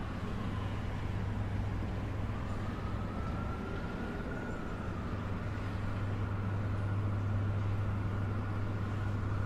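Steady city traffic ambience: a continuous low hum and rumble of distant traffic, with a faint high tone slowly rising and falling in pitch.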